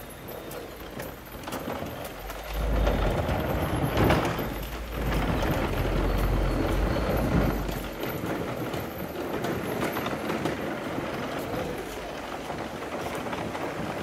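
Downtown street traffic, with a heavy low rumble starting about two and a half seconds in, loudest around four seconds, that eases off at about eight seconds.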